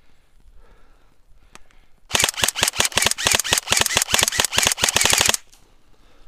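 Airsoft rifle firing one continuous full-auto burst of sharp clacking shots, about ten a second. It starts about two seconds in, lasts a little over three seconds and cuts off abruptly.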